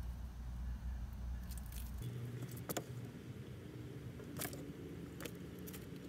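A few sharp clicks and light rattles of small parts being handled over a low steady hum, which changes abruptly about two seconds in.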